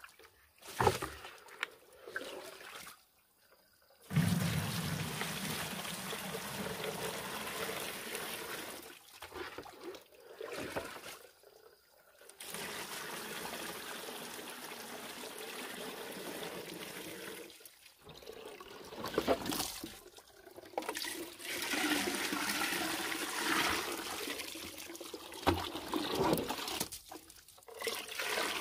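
Water poured from a plastic basin into plastic containers, including a watering can: several pours a few seconds long, with short breaks between.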